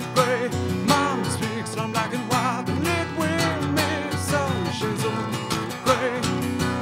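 Acoustic guitar strummed in a live solo performance, with a man singing a wavering melody with vibrato over it. The singing drops away near the end, leaving the guitar.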